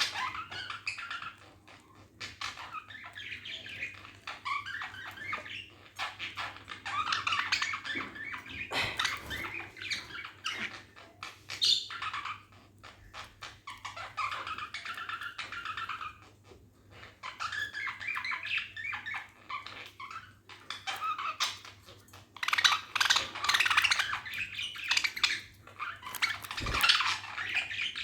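Budgerigars chirping and warbling in quick, busy bursts with short pauses between them.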